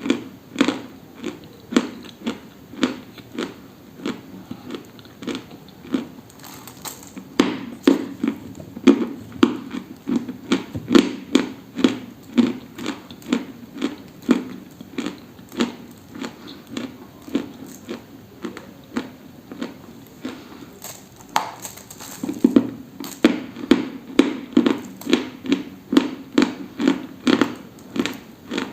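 Close-up crunching of something dry, bitten and chewed in a steady run of sharp crunches at about two a second, briefly thinning out partway through.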